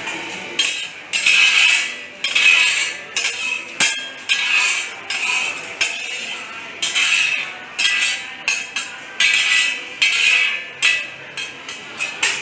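A metal spatula scraping and clanking on a hot pan while an oyster omelette fries: a run of short, harsh scrapes about one a second, with a few sharp knocks.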